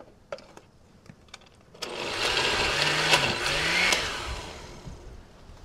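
A few light clicks as the blender jar is handled, then about two seconds in a countertop blender starts up and runs for about two seconds, puréeing tomatillos and cilantro into a green salsa, before winding down as it is switched off.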